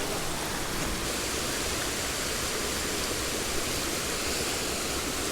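Mountain stream water running steadily, an even, unbroken rush of flowing water.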